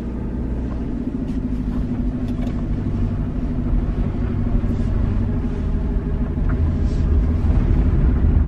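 Car engine and road noise heard from inside the cabin while driving: a steady low hum that gets a little louder toward the end.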